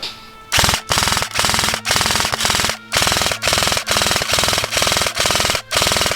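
Airsoft electric gun firing full-auto in about a dozen short bursts, each roughly half a second of rapid mechanical clatter from the gearbox cycling, with brief pauses between.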